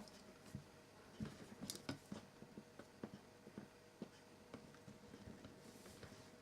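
Near silence broken by scattered faint clicks and light taps, from a clamp, wood pieces and paper layers being handled and set in place over a glued patch, with a faint steady hum underneath.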